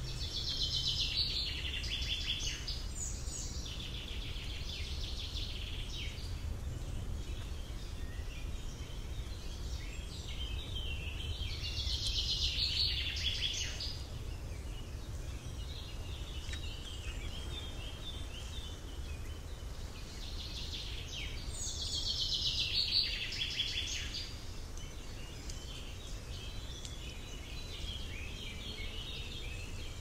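A parrot calling in three bouts of rapid, high chattering, each a few seconds long and about ten seconds apart, with softer chatter between, over a steady low rumble.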